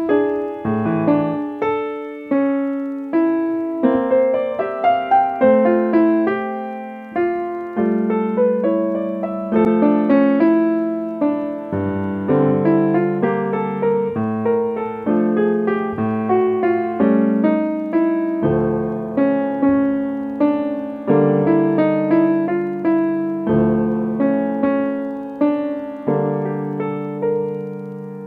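Solo piano music: a calm piece of notes and chords struck about every half second, each fading away, over held low notes.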